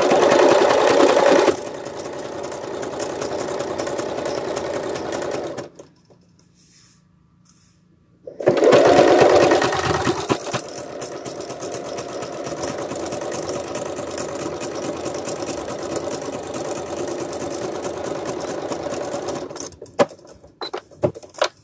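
Electric sewing machine running as it stitches a seam through green fabric, in two stretches with a pause of about two and a half seconds between them; each stretch starts louder, then settles to a steady run, and the machine stops near the end.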